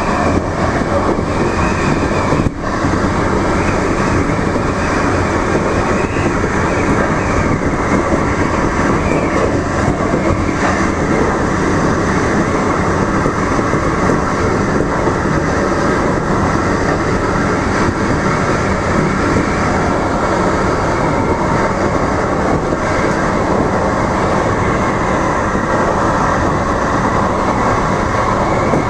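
DART light rail train running along the track, heard from inside the front of the lead car: steady loud running noise of wheels on rail and the car's drive.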